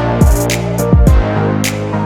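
Electronic background music: deep kick drums and sharp snare-like hits over sustained chords.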